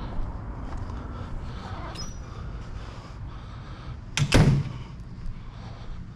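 A door being shut: a loud, sudden double thud about four seconds in, over a steady low rumble.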